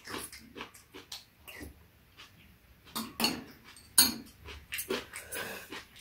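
Two people eating red bean porridge with dumplings by spoon: wet slurping and mouth sounds from spoonfuls, with metal spoons clicking against the bowls. The sharpest click comes about four seconds in.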